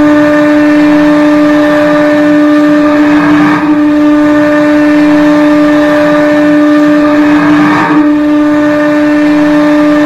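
St. John's IceCaps goal horn of the 2014-15 season: one long, loud, steady blast of a single low horn tone.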